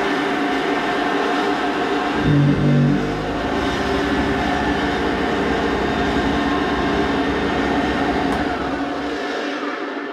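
Old Hoover upright vacuum cleaner running with a steady motor whine, a loud low hum breaking in briefly about two seconds in. The motor starts to run down near the end.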